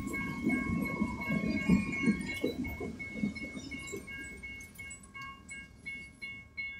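Railroad grade-crossing warning bell ringing rapidly, about three strokes a second. Under it, a freight train's wheels clatter and rumble over the rails, fading away as the last cars pass, which leaves the bell on its own near the end.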